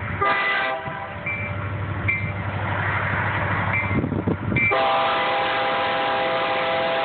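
BNSF diesel locomotive's air horn: a short blast just after the start, then a long steady blast beginning about two-thirds through, with the low rumble of the approaching locomotive between them. A grade-crossing signal bell dings steadily about once a second.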